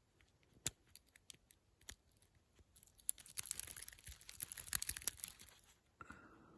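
Lock pick and tension bar clicking and scraping against the pins inside an Abus 41 padlock: a few scattered light clicks, then about three seconds in a rapid, scratchy run of clicking as the pick is worked quickly over the pins to find the binding pin.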